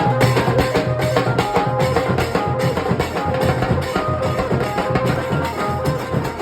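Nasik dhol drumming: fast, driving dhol strokes played without a break, with a melody of held notes stepping from pitch to pitch over them.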